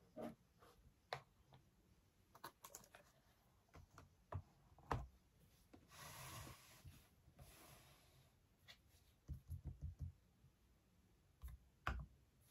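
Faint, scattered clicks and knocks of an iPad with an Apple Magic Keyboard and a laptop being handled and set down on a desk. A short sliding swish comes about six seconds in, and a quick run of about five taps comes near ten seconds.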